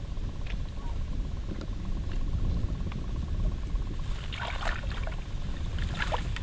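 Wind rumbling on the microphone, with a few brief rustles and clicks about four seconds in and again near the end.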